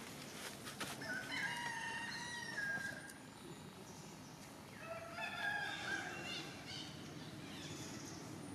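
A rooster crowing twice, once about a second in and again around five seconds in, each crow lasting nearly two seconds in stepped pitches.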